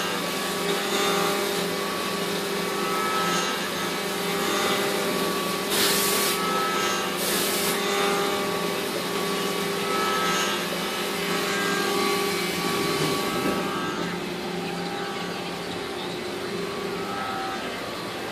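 Mazak 410A vertical machining center running, a steady machine hum with a recurring higher whine. Two short hisses come about six and seven seconds in, and the sound drops quieter after about fourteen seconds.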